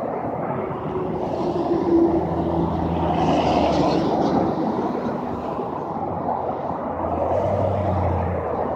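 Road traffic going by on a highway: tyre noise with the low hum of vehicle engines, which swells twice as heavier vehicles pass.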